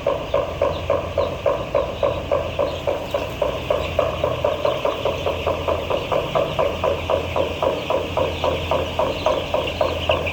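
A machine running with an even rhythmic pulse of about three to four beats a second over a steady low hum.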